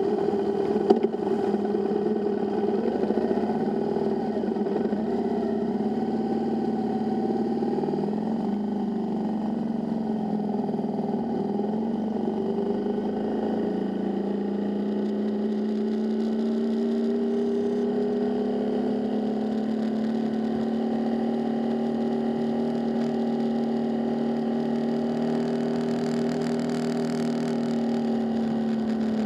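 Motorcycle engine heard from the rider's seat, rising and falling in pitch through gear changes for the first dozen seconds, then holding a steady, slowly rising note under load. A single sharp knock about a second in.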